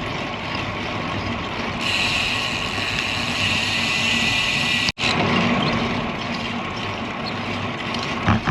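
Wind and road noise while riding a road bicycle: a steady rush of wind across the camera microphone with tyre hum on the road. A brighter hiss joins for a few seconds, and the sound cuts out for an instant about five seconds in.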